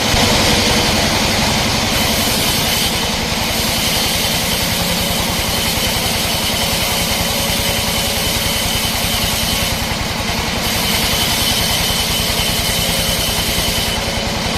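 Sawmill machinery running steadily: an engine-like drone made of rapid, even low pulses, with a steady high whine over a rushing hiss. It starts and stops abruptly.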